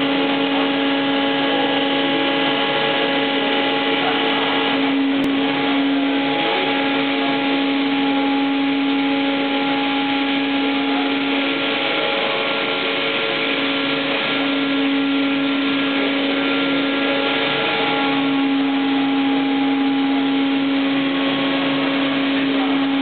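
Makino T1 horizontal machining center running through a pallet change: a steady machine hum with a strong low whine and fainter higher whines over a rushing noise. One short click about five seconds in.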